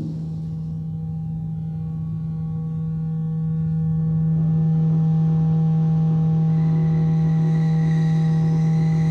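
Electronic drone: a steady low tone held without a break, with thin higher tones layered above it. It swells louder about three to five seconds in, and higher, brighter tones fade in after that.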